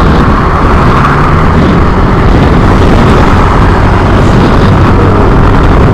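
Loud, steady wind rumble on the microphone mixed with a motorcycle's engine and road noise while riding.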